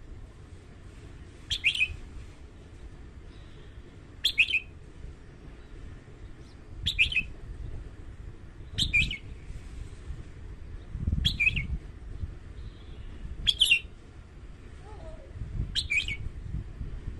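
A caged red-whiskered bulbul singing short, bright whistled phrases, seven of them, about every two and a half seconds.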